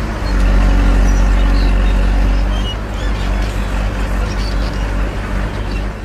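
Heavy excavator's diesel engine running under load, with the rumble and rattle of broken stone pouring from its bucket. Loudest in the first couple of seconds, then easing slightly.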